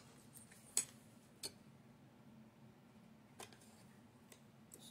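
About five faint, sharp clicks and taps of small model-helicopter parts and tools being handled, the loudest just under a second in.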